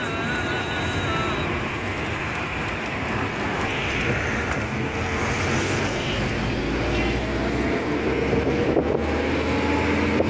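Car driving through city traffic, heard from inside: steady engine and road noise, with the engine note rising over the last few seconds as it picks up speed.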